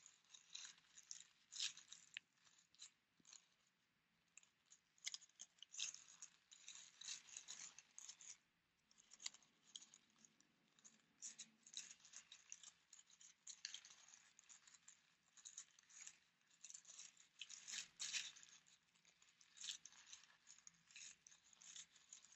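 Faint, irregular crinkling and rustling of tissue paper being scrunched by hand into flower petals.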